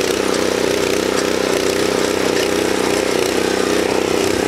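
Earthquake Victory rear-tine tiller's gas engine running steadily as its tines dig into hard garden soil.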